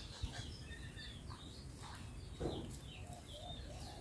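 Birds chirping in many short, falling calls, with a soft thud about two and a half seconds in.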